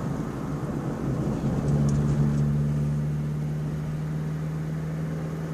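Car engine and road noise heard from inside the cabin. About a second and a half in, a steady low engine hum comes up, loudest about two seconds in, then slowly eases off.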